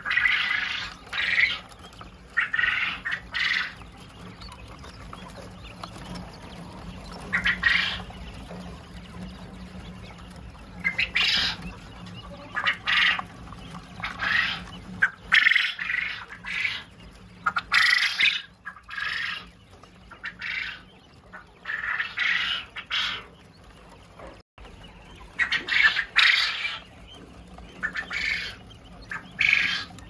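Flock of caged Japanese quail calling: short, high-pitched calls repeating at irregular intervals, often in quick groups of two or three, over a faint steady low hum.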